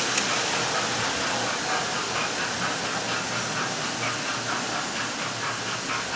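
Model trains running on a layout: a steady hiss over a low motor hum, with a faint regular beat that comes in about two seconds in.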